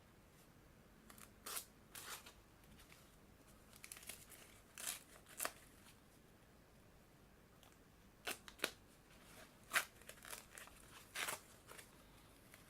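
Knife packaging being handled and unwrapped: a scattered series of short crinkles, tears and clicks with quiet gaps between them.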